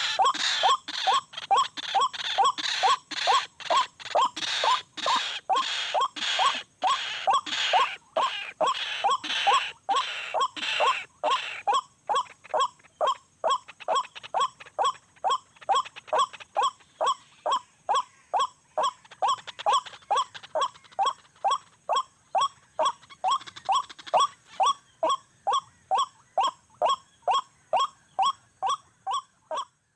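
White-breasted waterhen's monotonous repeated call, short notes at about two a second. It is the call used to lure the birds to a trap. For about the first twelve seconds each note is harsher and fuller, and after that it is thinner.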